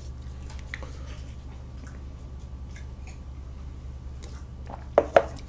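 A person drinking a hot drink from a paper cup: quiet sips, then two short gulps about five seconds in, over a low steady hum.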